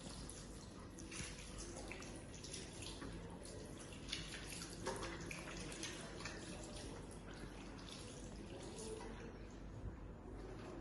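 Hands being washed under a running tap, water splashing and dripping irregularly into a sink.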